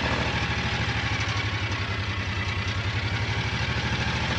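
The small engine of the vehicle being ridden through the garden, running steadily with an even, rapid pulse.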